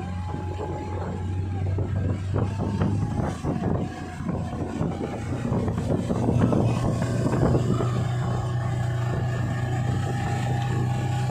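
Outboard motor of a speedboat running at speed while towing a banana boat, its pitch stepping up about halfway through as it speeds up, over the rushing wash of the wake and wind.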